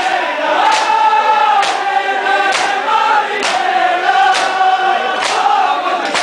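A crowd of men chanting a noha together in sustained lines, with hands striking bare chests in unison (matam) on a steady beat a little faster than once a second.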